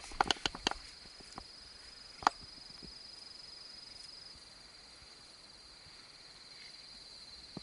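Insects droning with a steady, high-pitched buzz. A few light clicks come in the first second, and one sharp click a little after two seconds.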